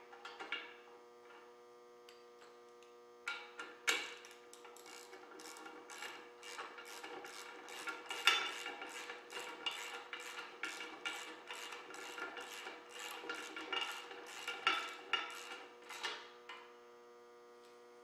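Ratchet wrench clicking as bolts on a drill press are snugged down, a quick rasping run of clicks, about three or four a second, starting about four seconds in and stopping near the end, over a steady hum.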